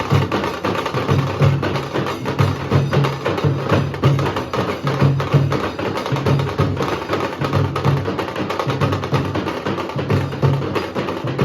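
Nasik dhol drums playing a fast steady rhythm: deep booming strokes under a dense run of sharp, cracking stick strikes.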